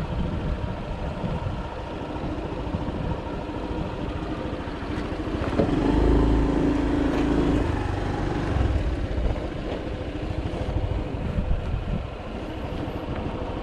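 Small-displacement (51–125 cc) scooter riding along with a steady engine drone and wind rush, the engine note growing louder for a couple of seconds about six seconds in.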